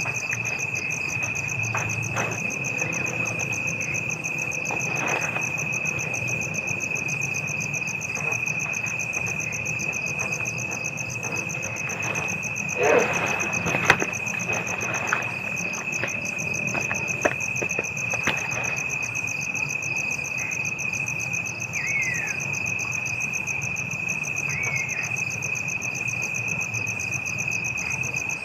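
Night insects, crickets among them, calling without a break: one steady high trill with a faster pulsing chirr above it, over a low background rumble. A few knocks come about halfway through, and two short falling chirps near the end.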